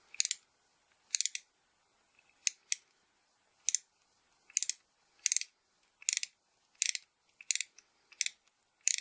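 Ratchet tap wrench clicking in short rasps, about one or two a second and a little faster near the end, as the handle is worked back and forth to cut a 3 mm thread in an aluminium heatsink.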